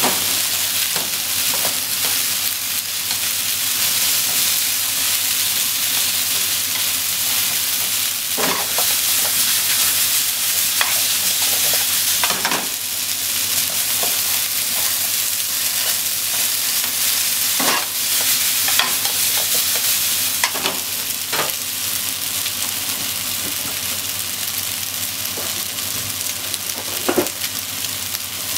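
Potato slices, shimeji mushrooms and minced meat sizzling steadily in a nonstick frying pan while a wooden spatula stirs them, with occasional sharp knocks of the spatula against the pan.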